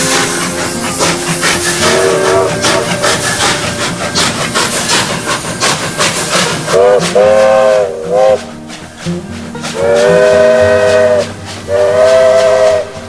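Steam locomotive working past with a steady hiss and a rapid run of exhaust beats, sounding its whistle: a few short blasts about seven seconds in, then two longer blasts near the end.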